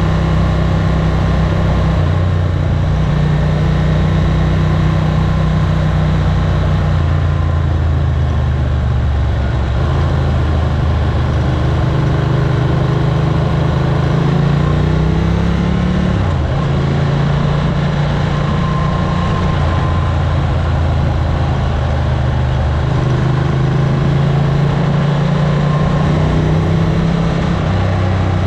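Ducati 900SS air-cooled L-twin engine idling steadily, its pitch wavering briefly about halfway through before settling back.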